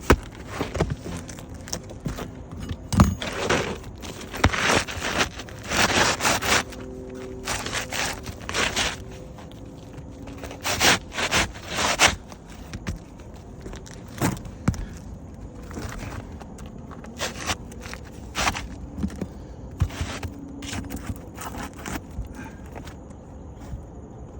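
Asphalt roof shingles scraping and rustling in repeated short strokes as a shingle is worked into place, dense for about the first twelve seconds and sparser after.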